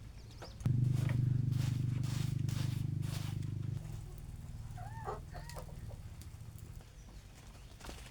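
Farmyard sounds: a loud, low, steady hum lasts about three seconds and then drops to a fainter hum. About five seconds in come two short calls that rise and fall, from a bird.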